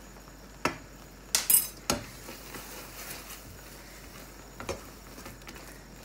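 A metal measuring spoon clinks sharply a few times in the first two seconds as it is tapped to shake out cardamom powder, then a silicone spatula stirs a thick coconut and milk mixture in a non-stick frying pan, with faint stirring sounds and one more light clink near the end.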